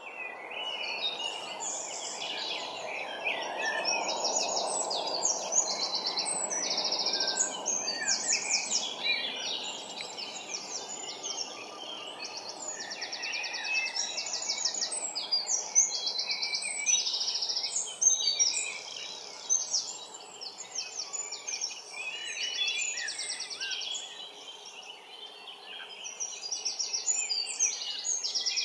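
Dawn chorus of many songbirds singing at once, with the rapid high trills of a wren and the warbling song of a blackbird most prominent. Underneath runs a low, steady distant traffic rumble, strongest in the first several seconds and then fading.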